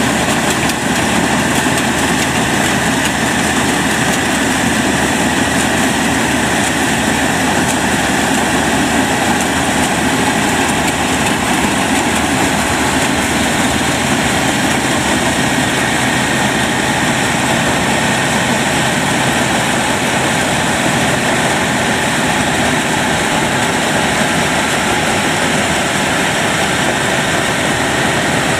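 Yanmar 4T100 combine harvester running steadily at close range while it cuts and threshes rice, its diesel engine and harvesting machinery making a continuous, even drone.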